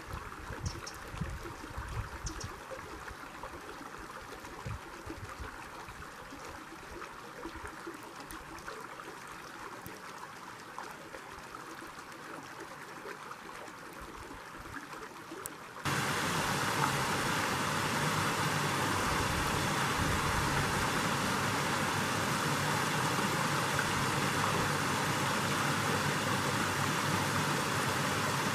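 A shallow creek running through a stone-walled channel, a steady rushing hiss. About 16 seconds in it cuts abruptly to a louder, fuller rush.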